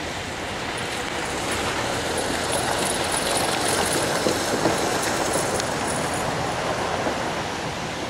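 Steady outdoor street noise: a constant rushing hiss over a low rumble, growing slightly louder through the first half.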